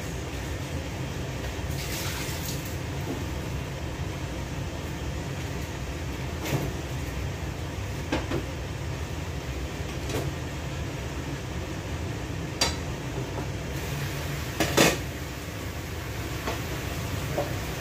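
Clinks and knocks of kitchen utensils and dishes every couple of seconds, the loudest about fifteen seconds in, over a steady low rumble.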